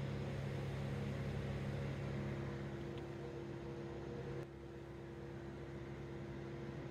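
Steady low mechanical hum with several held tones, like a running engine or machine, dropping a little in level about four and a half seconds in.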